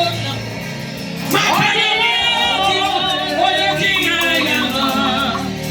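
Gospel worship music: a voice singing with vibrato over a band with a steady beat, with a rising sung swoop about a second in.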